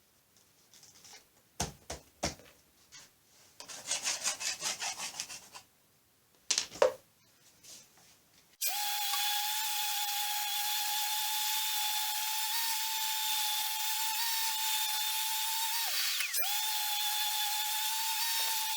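Knocks and rubbing on wood for the first eight seconds or so, then a random-orbital sander starts abruptly and runs with a steady whine and hiss over the end-grain board. Its pitch dips briefly twice near the end as it bears down.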